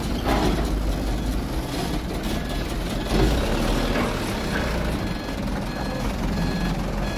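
Truck engine running steadily with a low rumble, with short high reversing beeps repeating through the second half and a single louder knock about three seconds in.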